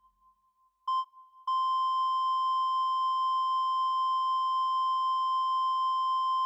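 Heart-monitor sound effect: one short electronic beep, then the same high tone held steady as a flatline.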